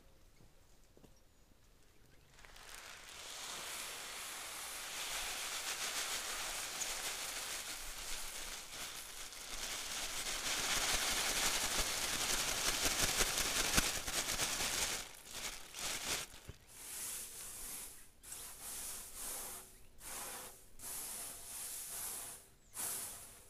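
Dry grain pouring from a plastic bag onto a flat board tray in a steady hiss for about twelve seconds, then a hand sweeping the grain across the board in short, separate rasping strokes.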